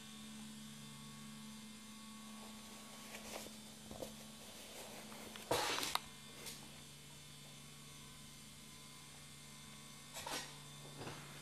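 Low steady electrical hum with a few soft rustling handling noises, the loudest about halfway through.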